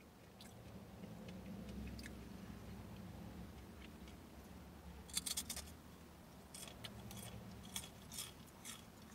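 Mouth chewing a crisp all-seed cracker, with faint crunches: a quick run of crunches about five seconds in and a few single ones later.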